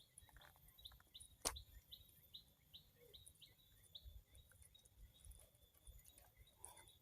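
Faint bird chirping: a series of short, high, slightly falling notes repeated two or three times a second, fading later on. There is a single sharp click about a second and a half in.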